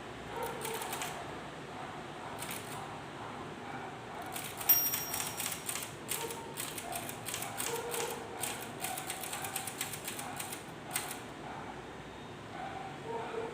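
K Clover 815 manual typewriter mechanism clicking: a few scattered clicks, then a quick run of rapid clicks about four and a half seconds in, opening with one sharp loud click, and easing off about eleven seconds in.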